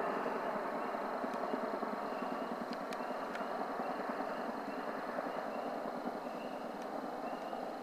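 Distant drone of a C-130 tanker and Chinook helicopters flying overhead, slowly fading as they move away. Faint short chirps repeat roughly once a second.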